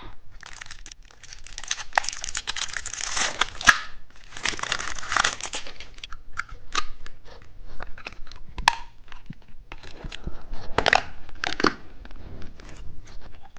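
Plastic candy wrapper being crinkled and torn open by hand, in rustling spells with sharp crackles. The candy inside is a car-key-shaped novelty sweet.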